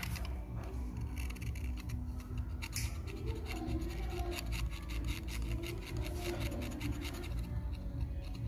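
Razor blade scraping a small metal part from a cassette player mechanism, a quick run of short scratchy strokes, over a low steady hum.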